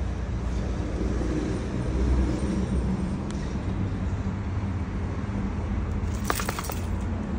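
Steady low rumble of background traffic. A quick run of sharp clicks comes about six seconds in.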